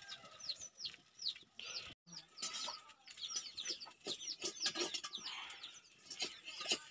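Chicks peeping: a steady stream of short, high, falling chirps, several a second, with scattered light clicks from a spatula in the iron wok.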